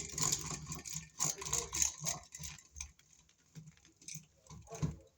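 Light metallic clicks, scrapes and rattles as wires are worked under a wall receptacle's terminal screws with a screwdriver, busiest in the first couple of seconds and then thinning to a few scattered clicks.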